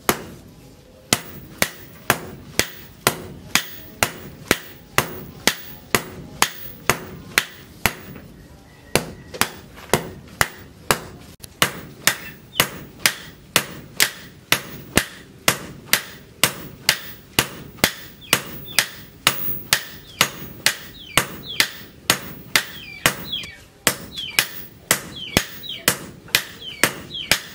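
Sledgehammer blows on a red-hot leaf-spring blade resting on a cylindrical steel anvil, struck hand-forging style in a steady rhythm of about two blows a second. Each blow is a sharp metallic strike.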